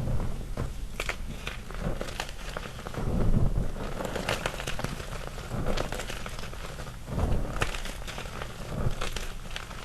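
Small gym chalk chunks and loose chalk powder being pressed and crushed by hand: soft crunching with many small, sharp snaps scattered throughout. There are heavier crunches about three and seven seconds in.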